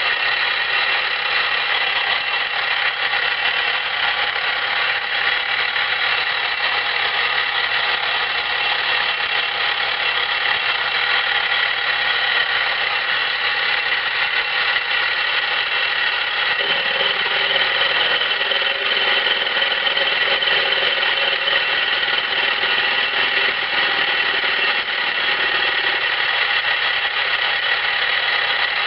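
Milling machine running with an end mill taking light cuts in a replacement lathe gib, about 15 to 20 thousandths per pass: a steady, high-pitched whine. A little past halfway a lower tone joins for about ten seconds, then drops away.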